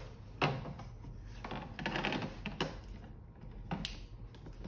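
Light knocks and clatter of a LiFePO4 battery pack being set down into a plastic crate, with its cables shifting; a few separate knocks, the clearest about half a second in.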